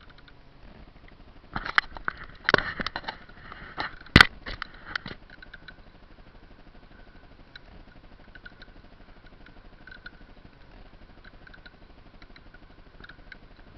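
Kayak pedal drive making its fault noise: a few loud knocks and clatter in the first seconds, then faint, irregularly repeating clicks and squeaks from the pedal mechanism. It is a defect that began after the drive was dropped in the water and has grown worse, and it sounds muffled through the camera's waterproof housing.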